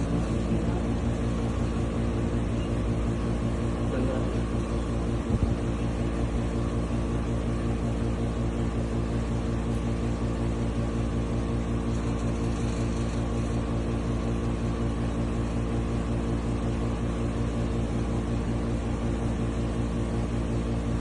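A steady machine hum made of several even, pitched tones, with one short knock about five seconds in.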